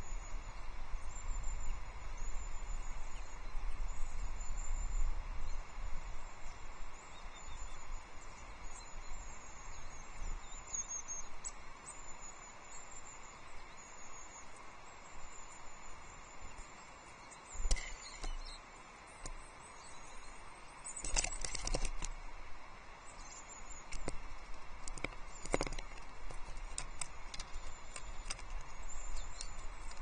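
Small songbirds calling on and around an osprey nest with thin, high chirps, over wind rumbling on the microphone. A few short sharp taps and flutters come in the second half.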